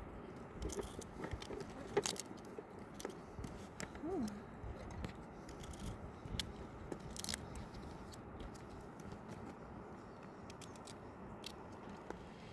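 Scattered sharp clicks and small crunches of something being handled, the loudest about two seconds in, with a short rising-and-falling pitched call about four seconds in.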